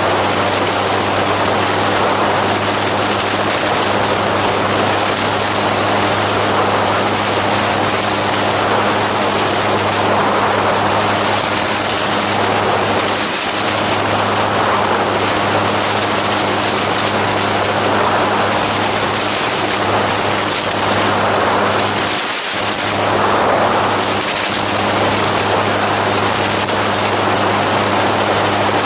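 A gyroplane's engine and pusher propeller running steadily in cruising flight, a constant low drone under a heavy rush of wind across the open-cockpit microphone.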